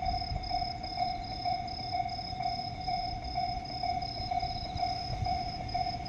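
Japanese railway level-crossing warning bell ringing with a steady, even electronic ding about twice a second, over a low background rumble.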